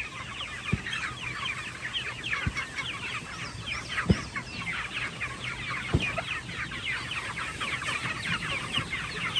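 A flock of chickens clucking and chirping continuously in a dense chatter of short calls, with a few brief low knocks, the loudest about four seconds in.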